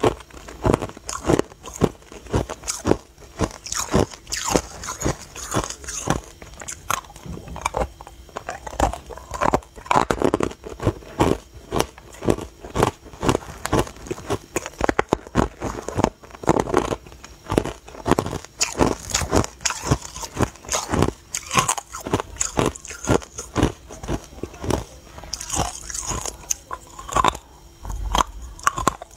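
Frozen matcha ice cubes being bitten and chewed: a continuous run of crunches and cracks as the ice breaks between the teeth.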